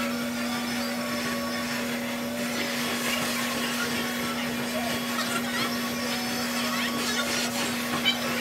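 Build-A-Bear stuffing machine's blower motor running with a steady hum while a plush dinosaur is filled through its stuffing tube. A short knock sounds near the end.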